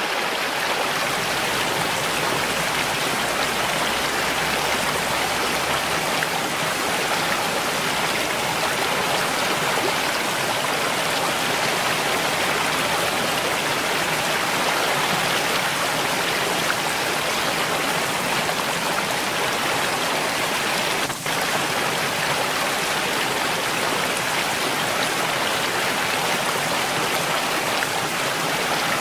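Mountain stream running: a steady, dense rush of flowing water, with one momentary dip in level about three-quarters of the way in.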